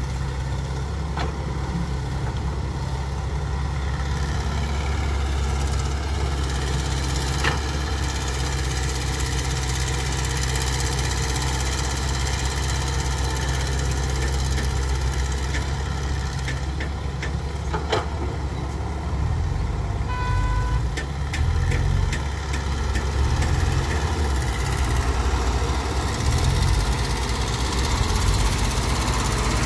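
Diesel engines of a tracked excavator and a dump truck running steadily at a dig site, with a couple of sharp knocks. About two-thirds through there is a short high beep, and after it the engine sound turns uneven.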